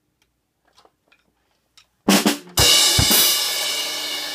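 Acoustic drum kit played by a child: a few faint clicks, then about two seconds in a quick group of loud drum hits, followed by a crash of the cymbals that rings on and slowly fades, with a deep bass drum hit under it.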